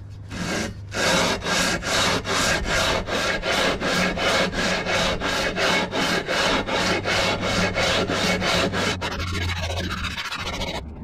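The cast iron flange of a 1961 Cadillac 390 V8 exhaust manifold being rubbed back and forth on wet 80-grit sandpaper over flat granite, in rasping strokes about three a second. The strokes turn quicker and lighter near the end. This is hand-surfacing the warped head-mating face flat so the gasket will seal.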